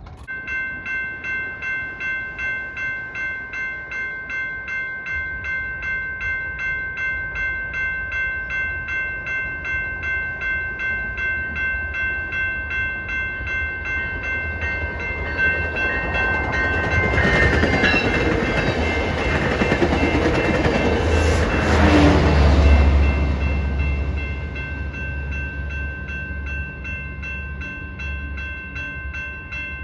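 Railroad crossing bell ringing steadily while a passenger train approaches and passes, its rail and engine noise building to the loudest point a little over 20 seconds in, then fading.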